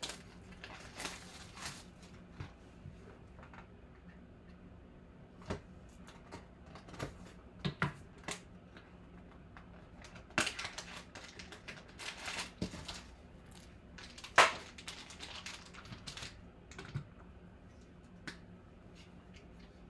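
Hands unwrapping and opening a small cardboard trading-card box: plastic shrink wrap crinkling and cardboard rustling in short, scattered bursts with light clicks, the sharpest about two-thirds of the way through.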